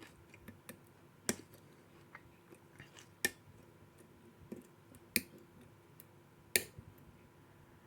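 Picking a USPS registered mail padlock: the pick and tension tool work the pins, giving four sharper metallic clicks spaced a second or two apart among fainter ticks.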